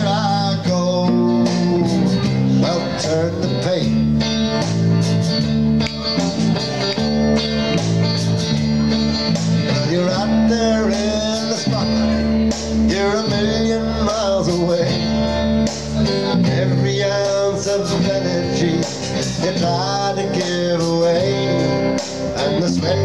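A live rock band plays an instrumental break on electric bass and electric guitar, with a lead line of bending notes over a steady bass line.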